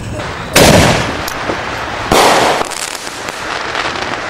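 Two loud firework bangs about a second and a half apart, each fading out over about half a second.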